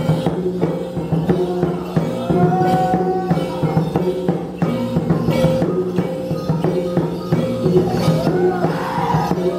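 Traditional Dayak gong music: large hanging gongs ringing with sustained low tones, struck with a drum in a steady repeating beat.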